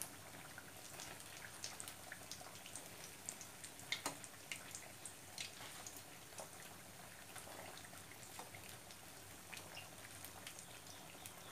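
Besan-battered egg bondas deep-frying in hot oil in a steel kadai: faint, steady crackling and popping. A slotted spoon turns them, with a sharper tap about four seconds in.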